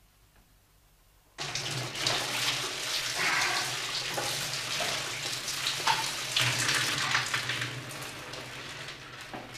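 Shower water running and spraying, starting abruptly about a second and a half in.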